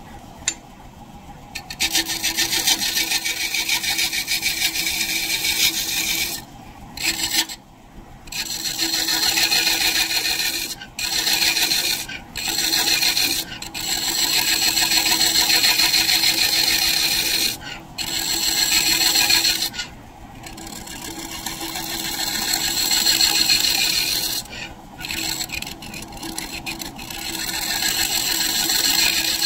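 Large turning scraper cutting the face of a spinning maple disc on a wood lathe: a loud hissing scrape that starts about two seconds in and breaks off briefly every few seconds as the tool is eased off and set back, over the lathe's steady hum.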